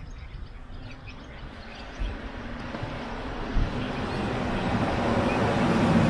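A motor vehicle's engine and road noise growing steadily louder as it approaches.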